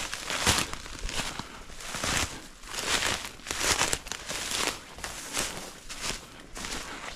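Footsteps of a hiker walking at a steady pace, a little under two steps a second, each step a short rustling crunch.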